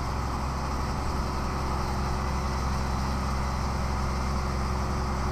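Scania 113's six-cylinder turbodiesel running steadily under load, heard from inside the cab. The owner takes a hiss from it for a boost-air leak at the turbo or intercooler hose.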